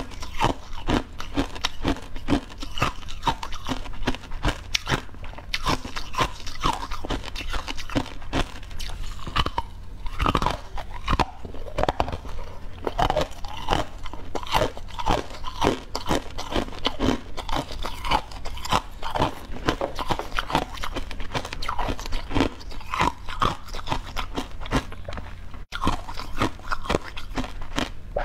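Close-miked eating sounds: a person biting into and chewing a crisp yellow pastry, with many quick crunches a second.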